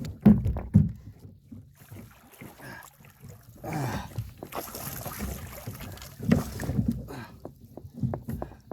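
Knocks and thumps in a small boat as a big, freshly landed catfish is handled, with a brief rushing noise about four seconds in and another run of knocks a couple of seconds later.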